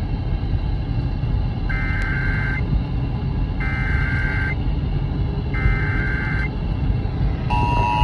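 Emergency Alert System SAME header broadcast on AM radio and played through a portable radio's speaker: three identical bursts of data, each about a second long and about two seconds apart, marking the start of an Illinois Required Monthly Test. Near the end, the steady two-tone EAS attention signal begins. Car road rumble runs underneath.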